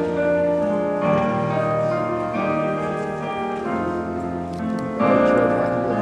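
Instrumental keyboard music playing held chords that change every second or so.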